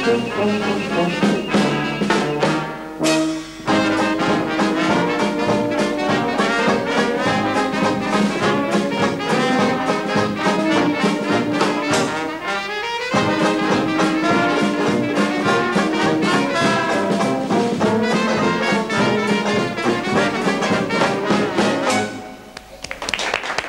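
Brass band (fanfare) playing a lively jazz-style tune: trumpets, trombones, tuba and euphonium over a drum kit and bass drum keeping a steady beat. A rising slide in pitch comes about halfway through, and the music stops near the end.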